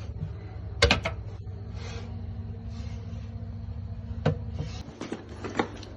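Sharp clicks and knocks of a stuck pop-up basin waste plug being worked at by hand: a pair about a second in, then a scatter more after about four seconds. A steady low hum runs underneath.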